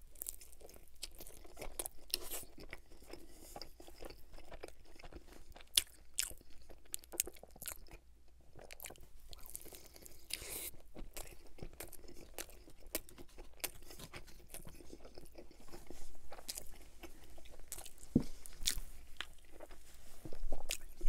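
A person biting into and chewing Little Caesars pizza: a steady run of crunching bites and chewing.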